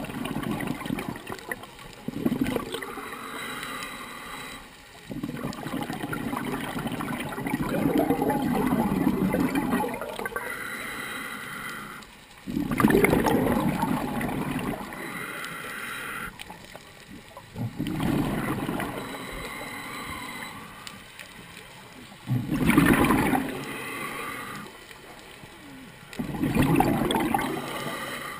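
A scuba diver breathing underwater through a regulator: exhaled bubbles gurgle out in bursts of a few seconds, about every four to five seconds, with quieter inhalations between them.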